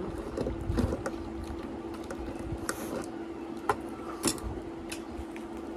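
Small sounds of a meal: a few sharp clicks and knocks of a bowl and a mug being handled, over a steady low hum.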